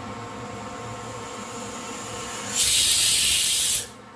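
Butterfly stovetop pressure cooker letting off a burst of steam under pressure: a loud hiss lasting just over a second, starting a little past halfway and cutting off abruptly.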